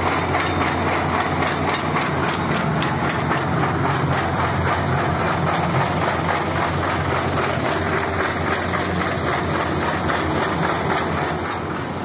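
Heavy diesel engine of the earthmoving machinery running steadily, with a fast, even clatter over its low drone.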